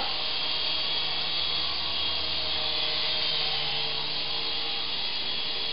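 Syma S108G micro coaxial RC helicopter's small electric motors and rotors whirring steadily as it hovers, a thin, even, high-pitched whine.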